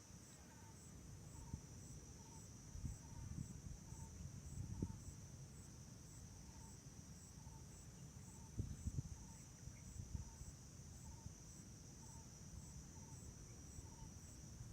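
Faint, steady chorus of insects: a continuous high chirring with an even pulse, over low rumbling background noise.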